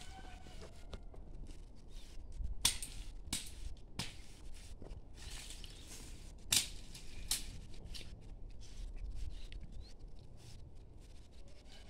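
Dry leaves and maize stalks rustling and crackling as they are gathered by hand into a pile, with a few sharp snaps or knocks, the loudest about three, four and six and a half seconds in.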